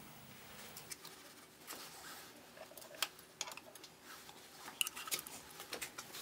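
Irregular light metallic clicks and taps of a feeler gauge and hand tools against the valve rocker arms and adjusters of a Honda NTV 650 cylinder head, sharpest about three and five seconds in, as the intake valve clearance is checked after adjustment.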